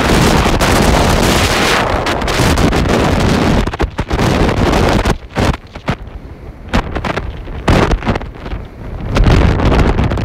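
Sandstorm wind buffeting the phone's microphone, loud and steady for the first few seconds, then coming in gusts with short lulls.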